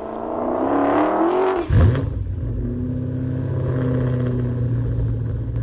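Dodge Challenger SRT Demon's supercharged V8 exhaust revving, its pitch climbing for about a second and a half. It breaks off in a brief loud burst a little under two seconds in, then settles into a steady, deeper exhaust note that holds.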